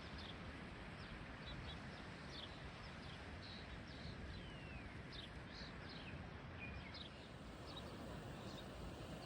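Small birds chirping with many short high calls and one falling whistle about halfway through, over a steady low wind rumble on the microphone.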